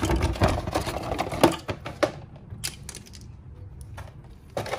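Spark plug wires and their plastic and rubber ends rattling and clicking as they are handled. The sound is busy for about two seconds, then drops to a few separate clicks.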